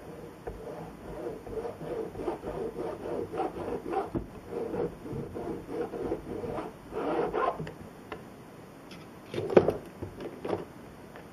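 A small file rubbed back and forth along the edge of a thin card strip in quick short strokes, about three a second, for several seconds. Near the end comes a single knock, the loudest sound, as a tool is set down on the bench.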